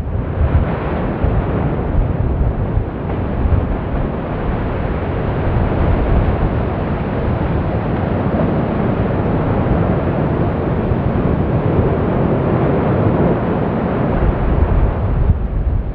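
Fagradalsfjall lava fountain erupting at close range: a loud, continuous rushing noise with a deep rumble underneath, as lava and spatter are thrown up from the vent. This is the forceful fountaining phase of a geyser-like, pulsing eruption.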